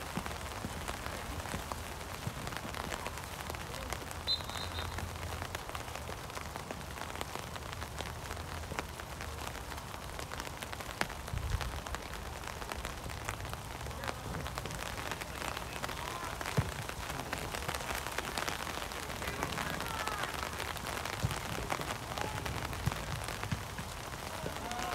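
Steady rain falling, with many small drops ticking close by against an even hiss.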